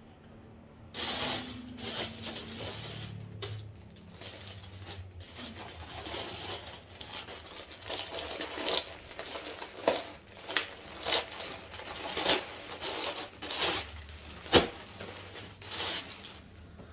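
Plastic clothing packaging bags crinkling and crackling as they are handled and opened, a run of sharp rustles starting about a second in, with one loudest sharp crack near the end.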